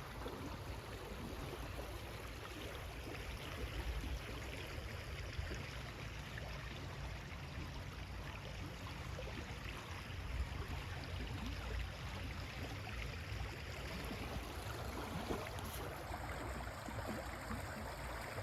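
River water flowing: a steady, even rush with a low rumble underneath.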